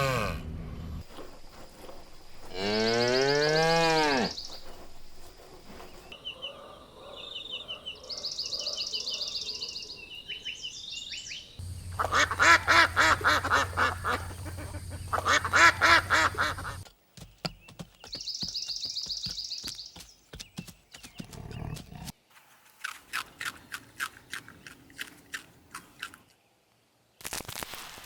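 A series of short farm-animal calls from different clips cut together. First comes one drawn-out call that rises and falls in pitch, then high peeping chirps, then two loud stretches of rapid pulsed calls, and finally scattered clicks and chirps.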